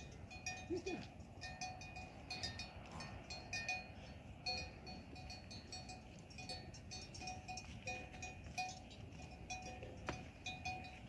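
Livestock bells clinking and ringing irregularly as animals move, with a short bleat about a second in.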